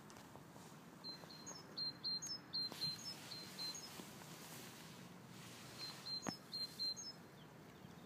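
European robin calling: two runs of quick, high chirping notes, the first about a second in and the second around six seconds in. A single sharp click comes in the second run.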